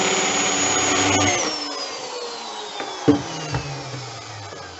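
Electric drill running at full speed, then released about a second in and winding down, its whine falling steadily in pitch as it coasts to a stop, after drilling out a scooter variator roller to lighten it. A sharp knock about three seconds in.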